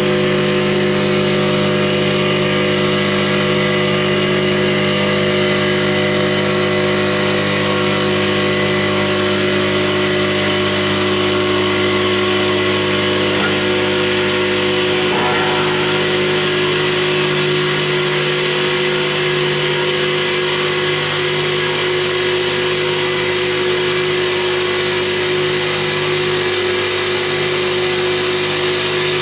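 CNC stone polishing machine running: a steady motor hum with a strong hiss over it.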